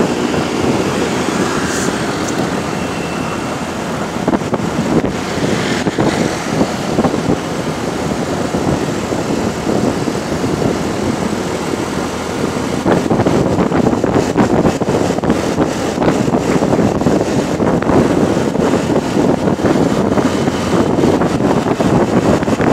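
Strong wind buffeting the microphone of a moving motorcycle, a loud, rough rushing noise with the engine running beneath it. It grows a little louder about halfway through.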